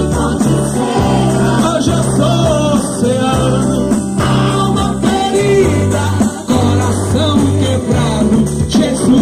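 Live gospel worship music: a band with a steady bass line and amplified voices singing a song over it.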